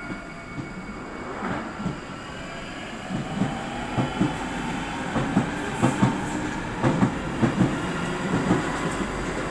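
London Underground Northern Line tube train moving along the platform, its wheels clacking over the rail joints in a quickening rhythm over a steady rumble, with a faint rising motor whine.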